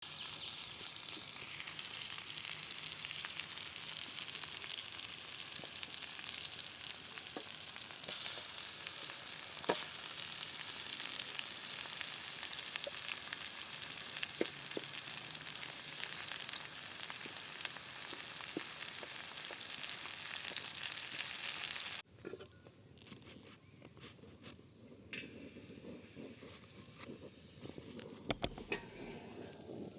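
Vegetables sizzling and frying in a pan over a campfire, a steady hiss with occasional pops and stirring clicks. About two-thirds of the way in it cuts off suddenly to a much quieter stretch with a few sharp ticks near the end.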